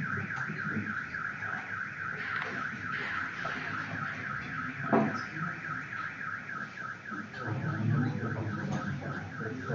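A high electronic tone with a fast, even warble, starting abruptly and holding a steady pitch; a single sharp click about halfway through.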